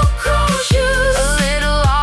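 Pop song playing, probably an instrumental passage: a gliding melody line over a steady low beat at about two beats a second.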